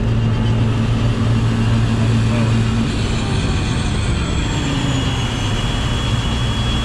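A farm machine's engine running steadily. Its low hum shifts about a third of the way in, and a high steady whine joins a few seconds later.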